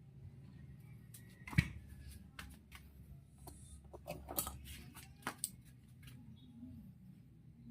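Scattered clicks and taps of small metal parts and tools being handled: one sharp knock about a second and a half in, a quick run of clicks around four seconds, and two more close together soon after, over a low steady hum.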